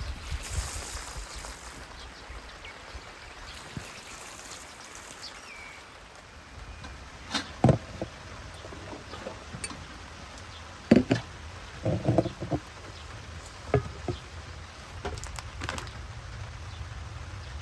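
Scattered sharp knocks and clunks, some in quick pairs, over a low steady rumble.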